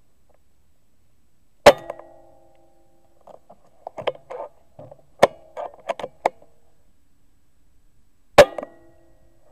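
Two air-rifle shots about seven seconds apart, each a sharp crack with a short metallic ring after it. Between them comes a run of clicks and knocks as the multi-shot rifle's bolt is cycled to load the next pellet.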